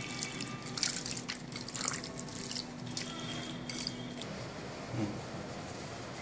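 Wet squelching and squishing of a hand kneading chicken pieces in a thick marinade, in irregular soft clicks and smacks that stop about four seconds in, followed by a faint steady hiss.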